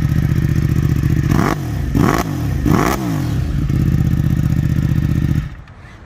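Ducati Streetfighter V4S's V4 engine with an Akrapovič exhaust, idling, then revved three times in quick succession, each rev rising and falling, before settling back to idle. It is switched off about five and a half seconds in.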